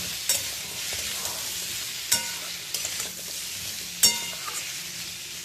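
Pumpkin chunks sizzling as they fry in oil in a metal kadai, stirred with a metal spatula that scrapes and knocks against the pan a few times. The loudest knock, about four seconds in, leaves a short metallic ring.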